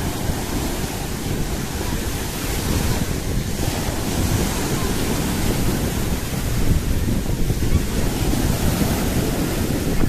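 Rough Black Sea surf breaking and washing over a sandy shore in a steady roar that swells slightly now and then, with wind buffeting the microphone.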